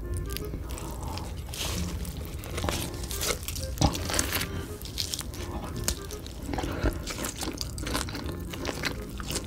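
Close-miked eating sounds: big bites into a slab of pork belly and chewing, with crunching and moist crackles. Faint background music plays underneath.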